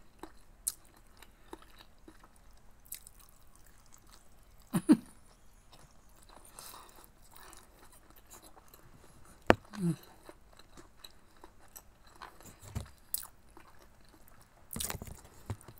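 Close-up chewing while eating siomai (steamed dumplings), mostly soft, with a few short louder mouth noises about five, ten and fifteen seconds in.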